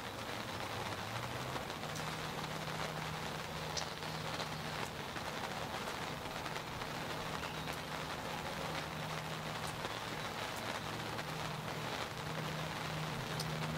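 Steady rain falling, with scattered sharper drops ticking, heard from inside a fabric hunting ground blind. A faint low steady hum runs under it from about a second and a half in.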